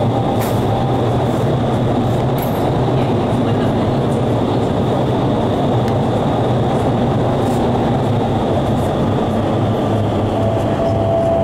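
Steady, loud rushing air of an indoor skydiving vertical wind tunnel in operation, a deep even rumble with no break.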